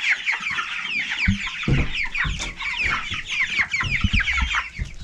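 A flock of four-week-old Meat King broiler chicks peeping continuously: many short, high, falling chirps overlapping. There are a few low thumps in the middle.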